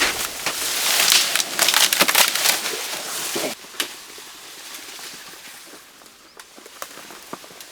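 Dense crackling and snapping of dry wood and vegetation being crushed, which stops abruptly about three and a half seconds in, leaving only a few scattered snaps.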